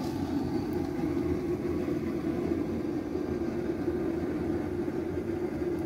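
A steady mechanical drone with a low hum, holding an even level throughout.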